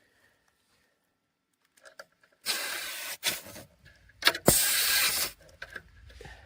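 Two short bursts of hissing air, each under a second, with clicks and a sharp knock between them, as when an inflator hose is fitted to a tire valve.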